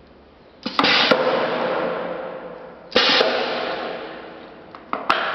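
Micron America MC-20 grommet press cycling as it sets a grommet into a paper sheet: three sharp clacks about two seconds apart, each followed by a hiss that fades away.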